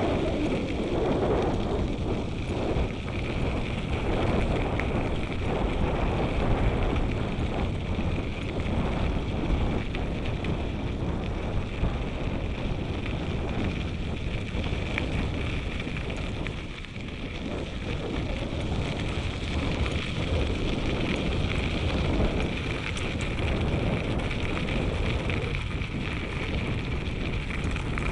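Wind buffeting the microphone of a moving bicycle, over a steady gritty crunch of tyres rolling on a crushed-stone trail surface.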